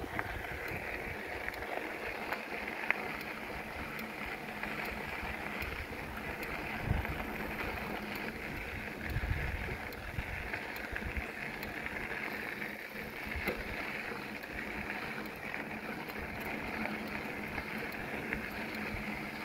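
Steady rolling noise of bicycles riding along the trail, with wind on the microphone. Low gusts rumble about seven and nine seconds in, and there are a few faint clicks.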